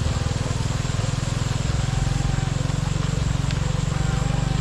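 A motor running steadily, heard as a low, evenly pulsing drone with faint distant voices above it.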